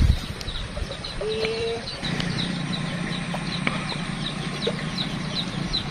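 A bird chirping over and over, a steady series of short high chirps, over a steady low hum that gets louder about two seconds in. A dull thump comes right at the start.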